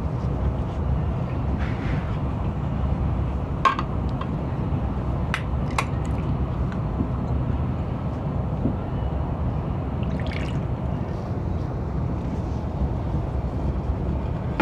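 Steady low rumble of a Chinese high-speed train running, heard from inside the passenger cabin, with a few light clicks and knocks in the middle from handling things at the seat.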